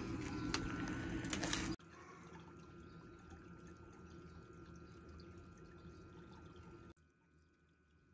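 Water trickling and dripping in a small pond tub, with a few clicks. About two seconds in it drops to a faint, steady trickle of circulating water, and near the end it goes almost silent.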